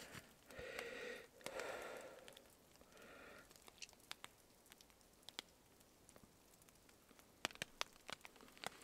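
Three short nose breaths in the first few seconds, then a run of small sharp clicks near the end as gloved hands work the blade into a bowsaw frame.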